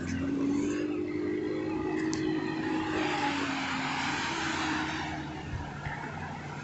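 Motorboat engine running out on the bay, a steady hum whose pitch rises slightly and then falls as it passes, fading after about five seconds.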